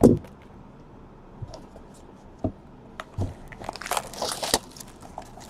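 Trading cards and their packaging being handled: a knock at the start, scattered light taps and clicks, and a burst of crinkling about four seconds in.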